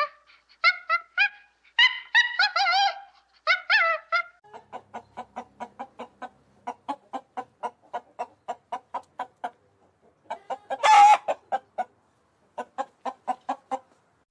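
A hen clucking: a long run of rapid, even clucks, about three to four a second, with one loud harsh squawk about eleven seconds in. It follows a few seconds of short high-pitched animal cries at the start.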